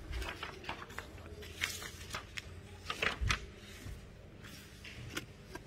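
Paper sheets of a printed form rustling and crackling as they are handled and turned, in a run of short irregular crinkles, loudest about three seconds in.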